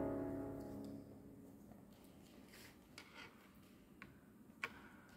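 Accordion holding a final chord that fades away over about the first second. A few faint clicks follow in the near quiet.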